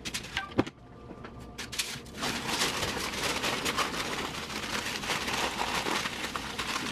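Sheet of aluminum foil being folded and crimped by hand into a packet, crinkling: a few separate crackles at first, then from about two seconds in a continuous dense crinkling.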